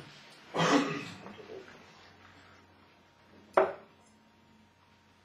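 A steel-tip dart strikes a Winmau Blade 4 bristle dartboard about three and a half seconds in: one short, sharp thud. A short burst of room noise comes about half a second in.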